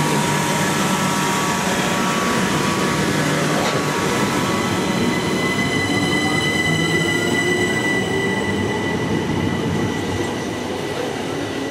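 Southern Class 377 Electrostar electric multiple unit running close past the platform: steady wheel and rail noise with a motor whine rising in pitch as it gathers speed. A high steady squeal joins about five seconds in, and the noise eases as the last carriage passes near the end.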